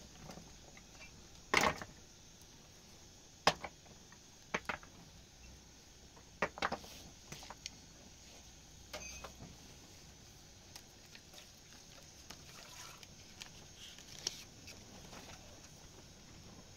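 A few sharp knocks and clicks at irregular intervals, the loudest two near the start, over a faint steady background.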